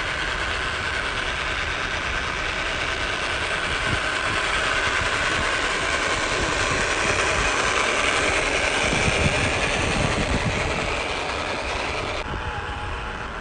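A WPL B16 radio-controlled truck's small electric motor and gearbox whining steadily as it crawls along under load, towing a heavily loaded trailer. The whine climbs a little in pitch past the middle and cuts off abruptly near the end.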